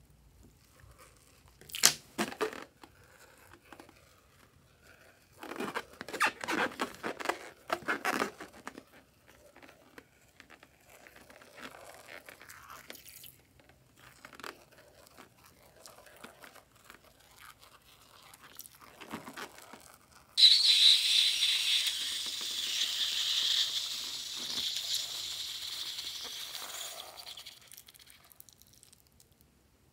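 A balloon filled with foam, its neck snipped open with scissors, being squeezed out over slime: short crackling, squishing bursts in the first part, then a sudden loud hiss about twenty seconds in that lasts some six seconds and fades, as air and foam are forced out through the cut neck.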